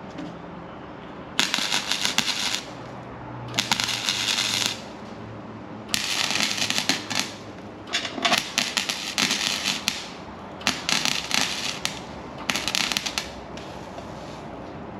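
Welding a steel patch into a Toyota Hilux's rusted inner sill: the welding arc crackles in about seven short bursts of a second or so each, with pauses between them, as the patch is stitch-welded.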